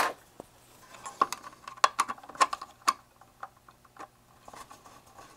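Small screw being driven by hand into the meter's transformer mounting: a run of sharp, irregular metal clicks and ticks, the loudest in the first three seconds.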